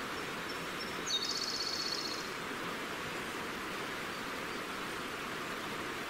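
Steady rushing of a forest river, with a small bird calling about a second in: a few faint high notes, then a quick, high trill lasting about a second.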